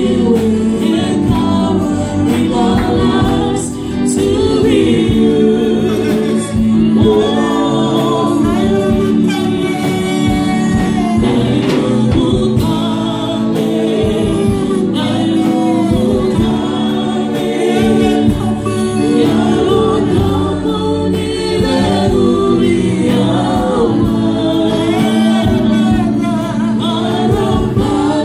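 Several voices singing a gospel worship song together through microphones and a PA system, continuous throughout.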